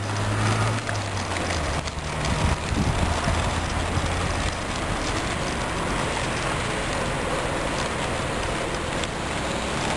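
Waveboard's small polyurethane caster wheels rolling on rough asphalt: a steady gritty rumble, with a low hum underneath that fades after about four seconds.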